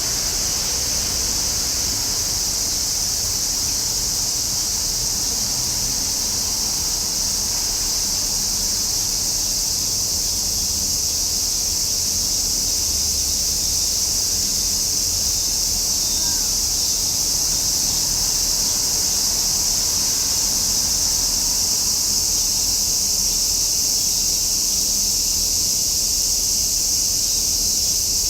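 Cicadas singing in a dense, steady chorus: a continuous high-pitched buzzing hiss.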